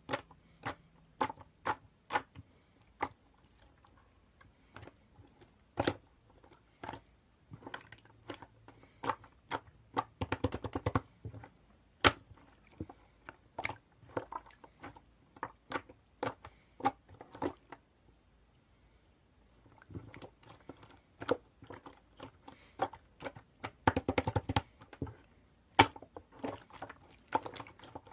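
Irregular sharp clicks and taps, one or two a second, with quick rattling flurries about ten seconds in and again near the end.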